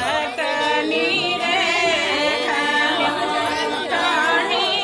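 A group of women singing a traditional Hindi tilak folk song together, unaccompanied, several voices overlapping on long, wavering held notes.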